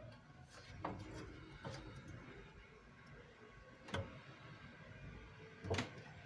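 A handful of faint clicks and light knocks from fingers handling a wire and terminal on a cup sealer's metal frame while reconnecting the cable to its heating element. The sharpest knocks come about four seconds in and just before the end.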